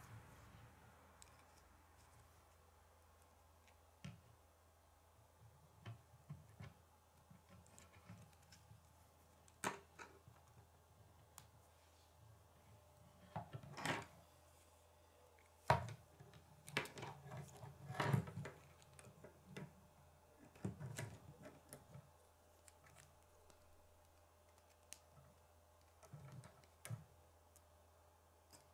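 Plastic K'nex rods and connectors clicking and snapping together as they are handled and fitted. Faint scattered clicks, with a few louder spells of clicking and knocking around the middle.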